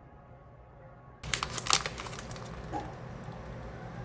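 Plastic and paper food wrapping being handled and opened, a burger coming out of its packaging. After about a second of quiet there is a quick string of sharp crinkles and clicks.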